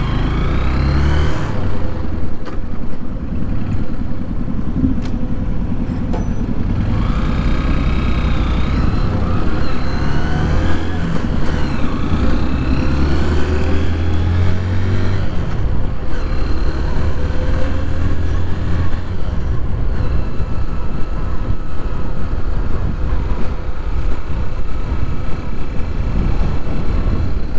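Motorcycle engine running under way, heard from a helmet-mounted microphone over road and wind noise; around the middle its pitch climbs in several rising sweeps as the bike accelerates through the gears.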